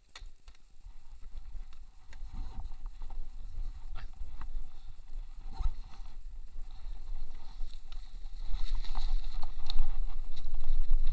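Wind buffeting the microphone and mountain bike tyres rolling over a dirt track on a descent, a low rumble that grows steadily louder as speed builds. Scattered clicks and rattles from the bike run through it.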